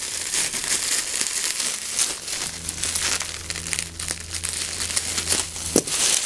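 Plastic bubble wrap crinkling and rustling as it is pulled and cut away from a toy sword, with scissors snipping through it partway.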